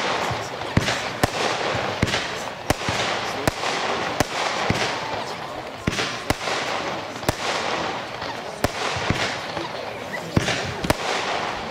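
Weco 'Walk of Fame' compound firework battery firing shot after shot: a sharp bang about every half second to second over a steady hiss.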